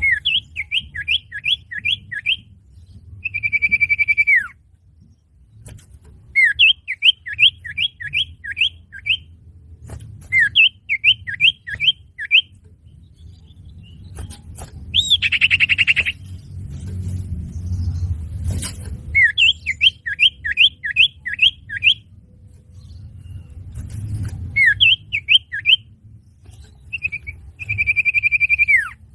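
Common iora (cipoh) song used as a bird-trapping lure: runs of about six quick down-slurred whistles, alternating with a long held whistle that drops away in pitch at its end, and a single harsh buzzy note about halfway through. A low rumble sits underneath.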